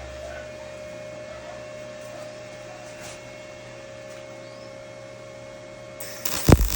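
Steady electrical hum with a faint constant tone. Near the end a loud hiss starts and a heavy low thump follows.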